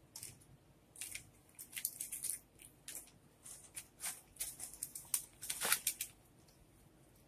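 Plastic snack packaging and a clear plastic cup being handled, crinkling and rustling in a string of short bursts, then going still near the end.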